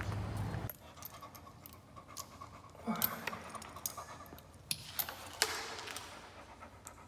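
Spaniel panting hard after a walk, with the small metal clinks of its collar and lead being handled. A steady outdoor background cuts off under a second in.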